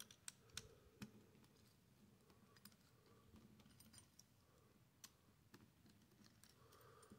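Faint, irregular small clicks and ticks of a screwdriver and loose metal parts as screws are backed out of a CPU cooler's mounting bracket, over near silence.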